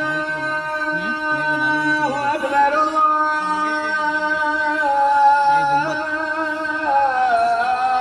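Background music: a singer holding long notes that step from pitch to pitch over a sustained accompaniment.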